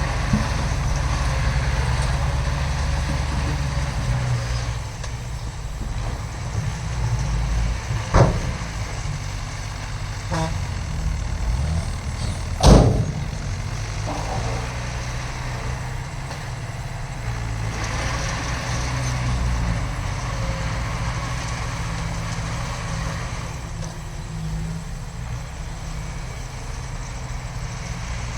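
Heavy diesel earthmoving machinery, dump truck or bulldozer engines, running steadily with a low rumble. Two short, sharp sounds cut across it, about eight seconds in and about thirteen seconds in, the second the loudest.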